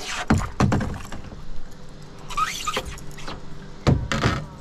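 Splashes and knocks from a small cod being lifted on the line at the side of a canoe, the loudest a sharp knock about four seconds in, over the steady engine hum of a water pump running upstream.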